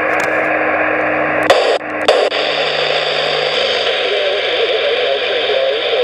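Yaesu FT-817 transceiver's speaker hissing with band noise and no signal on 160 metres. About a second and a half to two seconds in come a couple of sharp clicks and a brief dropout as the receive mode is switched from LSB to AM.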